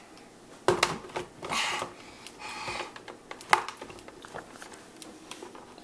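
Blender jar of graham crackers being handled and shaken, the crumbs rustling inside and the jar knocking a few times, with the sharpest knock about three and a half seconds in as the jar is set back on its base.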